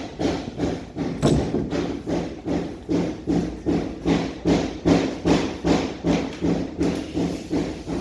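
Sandpaper rubbed by hand over a car's sheet-metal roof in quick back-and-forth strokes, about three a second, sanding off surface rust before primer.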